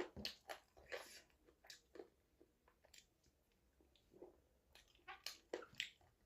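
A person chewing a mouthful of millet dhido and chicken curry: faint, irregular short mouth sounds, with a denser run of them about five seconds in.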